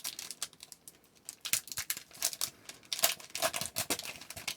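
Crinkling and tearing of a trading card pack's foil wrapper as a hockey card pack is ripped open and the cards handled: a quick run of crisp crackles and rustles.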